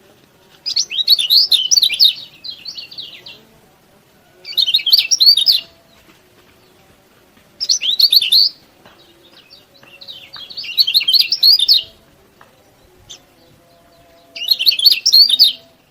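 Kecial kuning (yellow white-eye) singing in five loud bursts of rapid, chattering chirps, each burst lasting about one to two and a half seconds with short pauses between.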